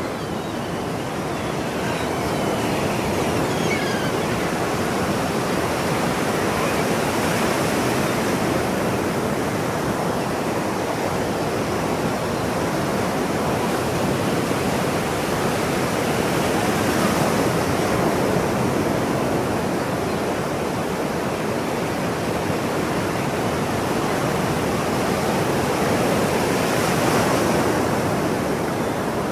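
Ocean surf: a continuous wash of breaking waves that swells and eases slowly, about every ten seconds.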